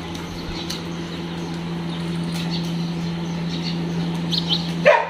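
Small birds chirping faintly over a steady low hum, with scattered light clicks. A short, loud, pitched call comes just before the end.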